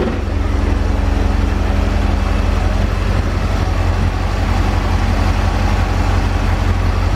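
1984 Corvette's 5.7-litre V8 idling with an even low pulse, with the electric radiator cooling fan running, switched on by the A/C. A steady hum in the mix drops away about three seconds in.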